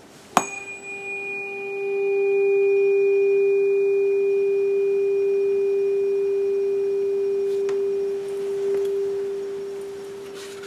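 A 396 Hz tuning fork is struck once with a sharp click about half a second in, then rings with one steady pure tone and a faint high overtone. The tone swells about two seconds in and keeps ringing.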